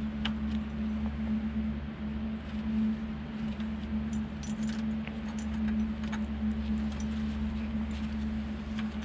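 A steady low hum runs throughout, with scattered faint clicks and rustles from gloved hands handling wires and pushing connectors onto the terminals on the back of an instrument cluster.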